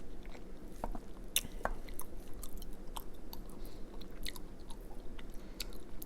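Close-miked chewing of a mouthful of vegan tater tot casserole, heard as scattered small mouth clicks and soft crunches.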